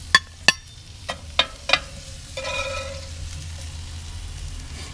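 Metal tongs clicking against the grill grate and a ceramic plate as sautéed peppers and onions are lifted off, with a faint sizzle beneath. There are five sharp clicks in the first two seconds, then a brief squeaky scrape about halfway through.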